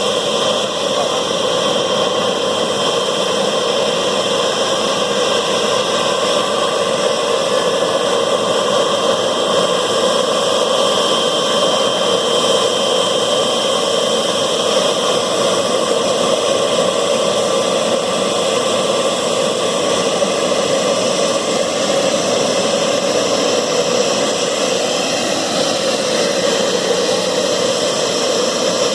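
Jet engines of a Boeing 777-300 running steadily on the ground: a constant roaring hiss with several steady high whines on top.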